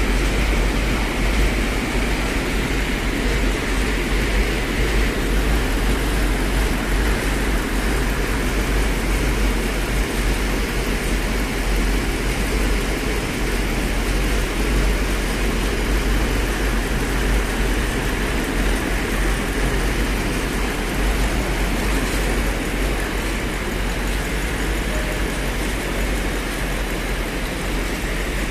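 Lexus LX 570's 5.7-litre V8 engine running steadily on an engine stand, out of the car.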